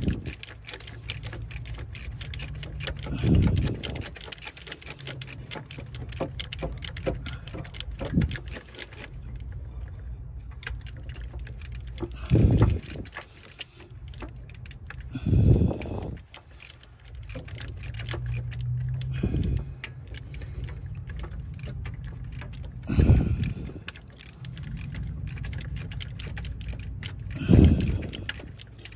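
Hand wrench working the rear alternator bolt in a cramped engine bay: a steady run of small metallic clicks and clinks, with a louder short sound every three to four seconds over a low background hum.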